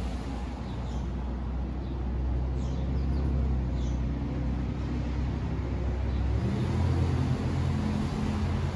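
Low steady engine drone of a motor vehicle, growing louder and shifting to a higher hum about six seconds in, with a few faint bird chirps.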